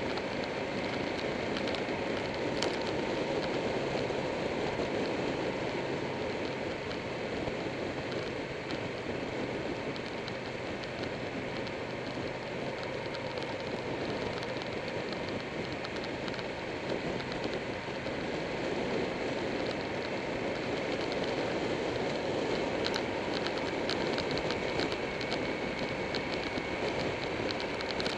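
Steady wind rush and road noise at a camera mounted on a motorcycle riding at speed, with the engine running underneath. A faint rattle of quick ticks comes in near the end.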